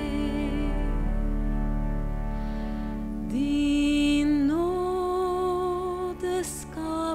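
Church organ playing sustained chords, joined about three seconds in by a woman's solo voice singing long held notes over them.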